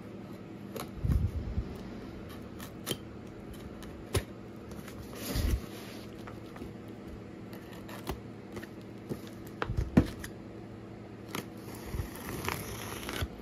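Cardboard shipping carton being handled while its packing tape is slit with a pen-style cutter: scattered scrapes, clicks and knocks of the box, with a short scraping stretch near the end as the blade runs along the tape.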